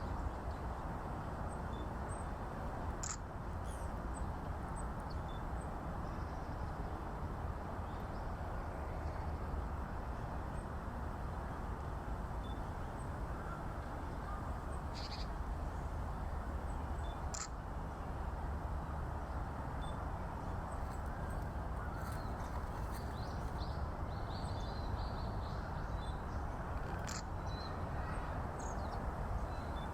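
Steady low outdoor background noise with a few brief, high-pitched bird calls scattered through it, a short cluster of them about three-quarters of the way in.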